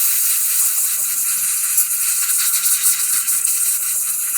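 A loud, steady hiss of pressurised spray directed at the circuit board. It starts and stops abruptly and lasts about four seconds.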